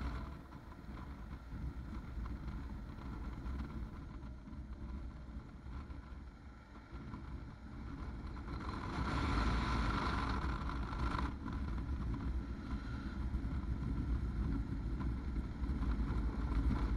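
Kawasaki KLR 650 single-cylinder engine running as the motorcycle rides along a paved road, heard as a steady low rumble with wind noise on the camera microphone. It gets louder from about halfway through.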